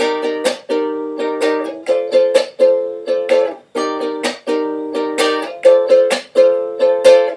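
Ukulele strummed in a quick rhythmic pattern, switching back and forth between barre chords at the third and fifth frets.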